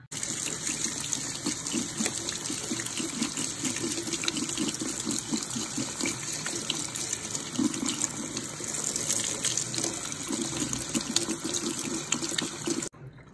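Kitchen tap running water onto basmati rice in a stainless steel mesh strainer over a stainless steel sink, rinsing the extra starch off the grains. A steady splashing stream that cuts off suddenly near the end.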